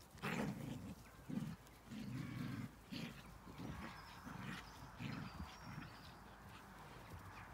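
Dogs play-growling while wrestling: a run of short, low growls at irregular intervals, with faint birdsong behind.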